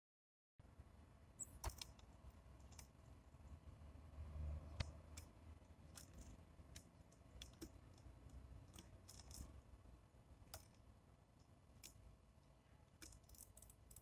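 Faint, scattered sharp clicks and taps of tits landing, hopping and pecking at seeds on a wooden feeder tray, over a low background hum.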